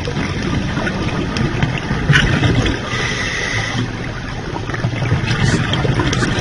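Scuba diver breathing underwater through an aqualung regulator: a steady dense bubbling rumble, with a sharp click about two seconds in and a brief hiss about three seconds in.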